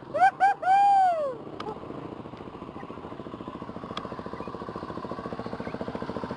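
A few quick high-pitched wails that rise and fall in the first second or so, then a dirt bike's engine running at a steady fast idle while the bike lies on its side in a muddy bog hole, getting a little louder near the end.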